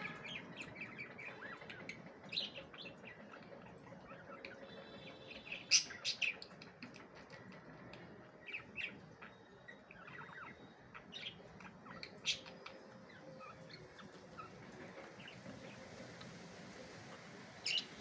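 Two pet budgerigars chirping: scattered short chirps, with a few sharper, louder calls, the loudest about six seconds in and again near the end.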